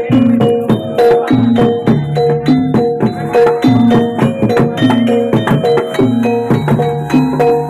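Gamelan-style jaranan (kuda lumping) dance music: sharply struck, ringing pitched percussion in a quick, repeating pattern over low sustained notes.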